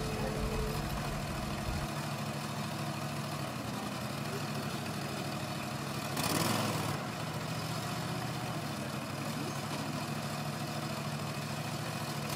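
Schlüter Super Trac 2200 tractor's diesel engine running steadily at a low, even pitch, with a brief louder rush of noise about six seconds in.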